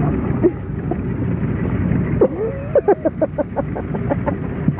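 Steady low rumble of tractor engines running at a tractor pull. Short voice sounds come through around the middle.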